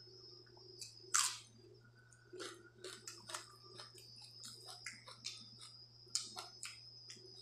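Close-up eating sounds: a loud crunching bite about a second in, likely raw onion, followed by chewing and irregular wet clicks and squishes as water-soaked rice is mixed by hand in a steel plate.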